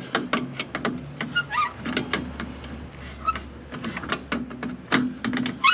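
Water pump pliers working the brass drain-off valve on a central heating pipe to open it: a string of metal clicks and knocks with a few short squeaks as the spindle is turned.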